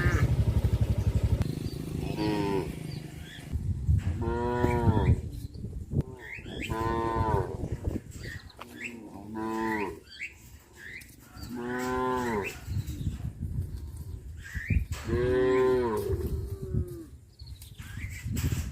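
Cattle mooing: about six separate drawn-out moos, each about a second long, rising and then falling in pitch, spaced a few seconds apart. At the start a small engine is running, and it stops about a second and a half in.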